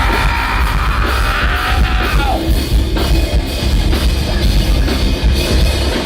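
Live heavy rock band playing loud: distorted guitars, bass and drum kit, with the singer holding a yelled note that ends about two seconds in.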